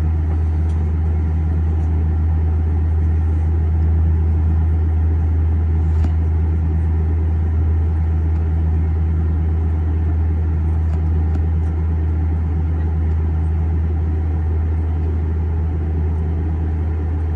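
Steady low drone inside the cabin of an Airbus A320 standing on the ground, with a faint click about six seconds in.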